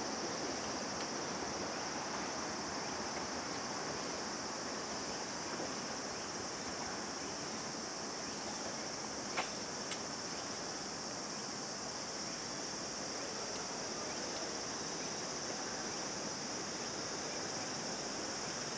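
Steady high-pitched chirring of insects over a constant background hiss of outdoor noise, with one sharp click about nine seconds in.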